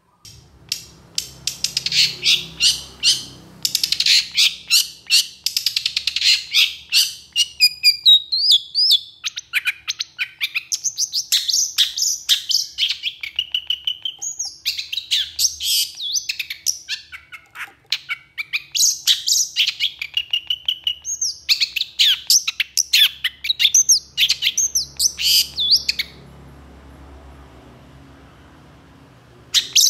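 Long-tailed shrike (pentet) singing loud, fast runs of rapid chattering notes mixed with short gliding whistles, in long bursts separated by brief pauses. It falls silent about 26 seconds in and starts again right at the end.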